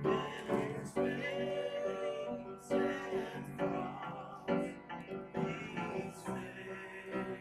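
A man singing a worship song with piano accompaniment, holding some notes for about a second.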